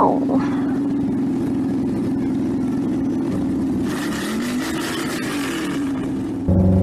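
Car engine sound effect, the Batmobile running and revving, with a rise and fall in pitch and a hiss about four seconds in. A loud, deep held tone comes in near the end.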